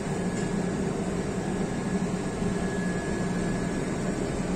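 Steady hum of ship's engine-room machinery and ventilation heard from the engine control room: a low drone with a faint high whine over it.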